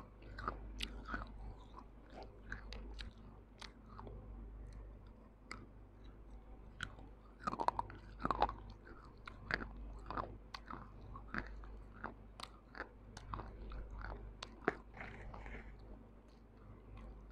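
Close-miked crunching and chewing of a broken baked-clay kulhad cup coated in wet mud paste: crisp crackles and clicks throughout, with the loudest cluster of bites about halfway through.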